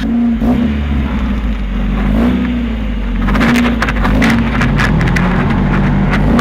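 A motor running, its pitch dipping and rising about once a second, with rasping scrapes joining in from about three seconds in.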